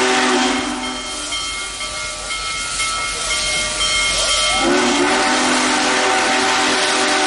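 Union Pacific Big Boy 4014's steam whistle blowing a long chord of several notes at once over a hiss of steam. About a second in it thins to a quieter, higher sound, then near two-thirds of the way through it swells back to the full chord with a rising start.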